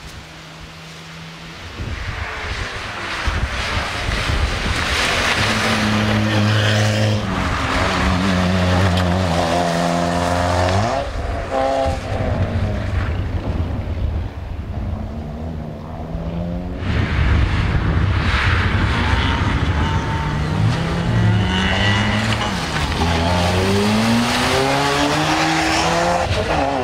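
Small hatchback rally car's engine revving hard, its pitch climbing through each gear and dropping sharply at each change or lift, several times over. Over it runs a steady rushing hiss of tyres on wet tarmac.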